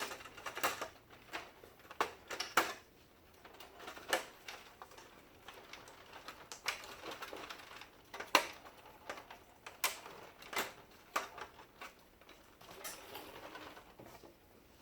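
Plastic covers of an HP LaserJet printer being handled and fitted back into place: irregular sharp clicks and knocks, a few louder snaps, with soft rustling of the parts between them.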